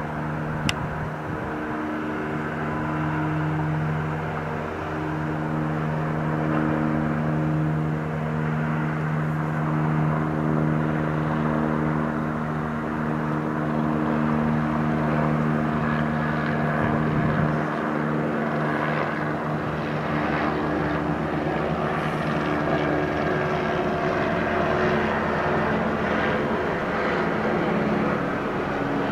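Police helicopter's engine and rotors running with a steady hum, its pitch shifting a little now and then.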